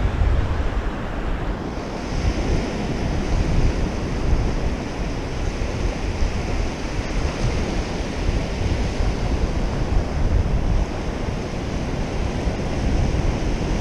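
Small surf waves breaking and washing up the sand in a steady wash, with wind buffeting the microphone as a low rumble.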